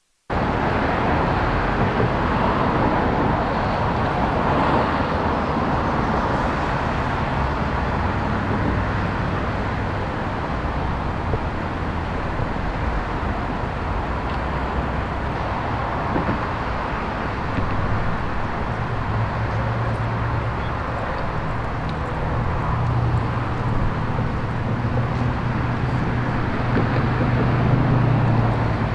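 Steady freeway traffic noise, an even rush of passing vehicles, with a low engine hum growing louder in the last few seconds.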